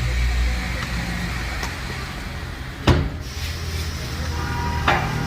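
Steady low rumble of a running motor vehicle engine, with a sharp knock about three seconds in.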